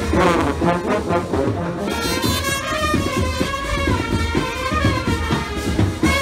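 Brass band music: horns playing a melody over a steady drum beat.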